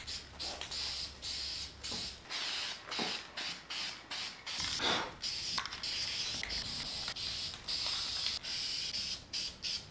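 Aerosol spray-paint can spraying in many short hissing bursts and a few longer ones, laying a first coat of paint onto a bare transmission case.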